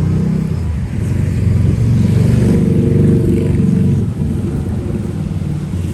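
Motor vehicle engine running close by, a low rumble that swells through the middle and eases off after about four seconds, as of a vehicle passing.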